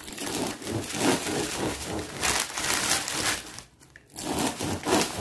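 A knife sawing back and forth through the hard, crusty crust of a rustic bread loaf, the crust crunching and crackling with each stroke. The loaf's paper wrapping crinkles underneath. The sawing pauses briefly about three-quarters of the way through, then starts again.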